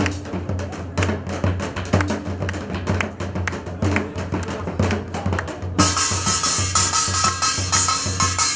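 Live Korean folk percussion: a steady drum beat with sharp stick strikes on a painted barrel drum (buk). About six seconds in, a bright jingling layer comes in suddenly on top.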